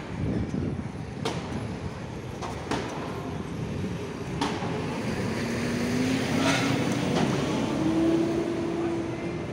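Street traffic noise, with a vehicle engine rising in pitch and getting louder about halfway through. A few sharp clicks sound in the first half.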